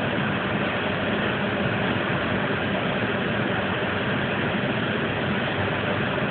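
A steady, even engine noise, like a large vehicle or machine idling.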